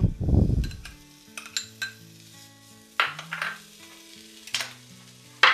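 Tuna tipped from a glass bowl into a frying pan, loudest in the first second, then a metal spoon stirring it into the flour-and-onion mixture with light sizzling. Several short sharp scrapes of the spoon against the pan.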